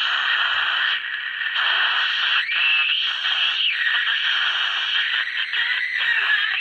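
Westinghouse H-908PN9GP nine-transistor radio on AM giving a bad squeal: loud hiss with a steady high whistle through it, and a whistle that bends up and down in pitch about two and a half seconds in. The squeal comes from a leaky 0.5 µF electrolytic capacitor.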